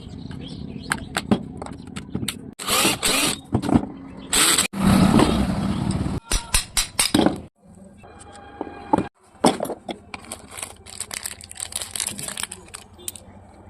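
An electric grinder's motor runs in short bursts, mixed with scattered clicks and knocks of metal parts being handled during a gear repair.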